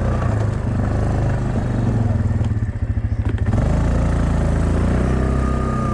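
A 2007 Yamaha Kodiak ATV's single-cylinder engine running under load while its front blade pushes snow. The engine note drops briefly about halfway through, then picks back up.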